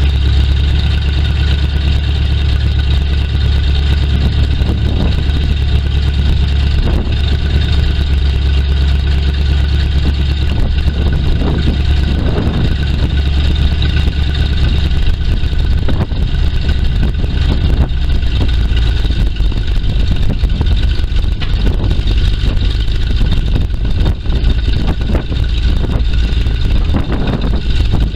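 The Chevrolet 427 cubic-inch gas V8 of a 1979 Chevrolet C60 grain truck runs steadily with the PTO engaged, driving the hydraulic hoist that raises the dump bed.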